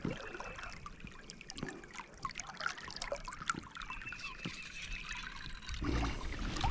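Shallow creek water trickling, with scattered small irregular ticks and splashes; a low rumble comes in near the end.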